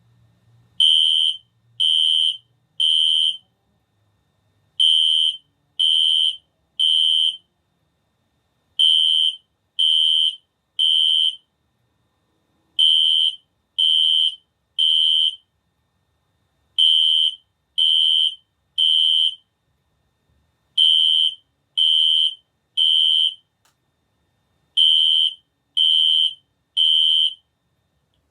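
Fire alarm being tested, sounding a high-pitched tone in the temporal-three evacuation pattern: three half-second beeps a second apart, then a pause, repeating every four seconds. It stops near the end.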